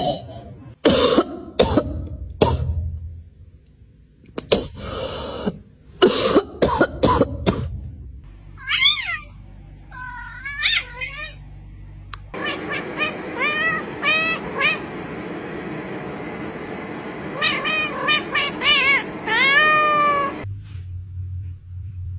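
Cats meowing. Several short noisy bursts come in the first few seconds, then a series of meows that glide up and down in pitch, with a quick run of loud calls near the end.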